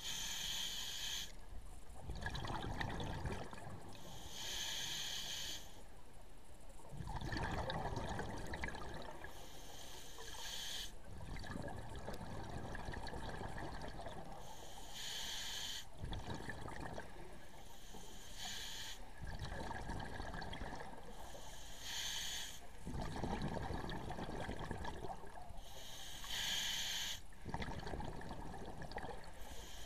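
Scuba diver breathing underwater through a regulator: a hissing inhalation every four seconds or so, each followed by the bubbling rumble of the exhalation.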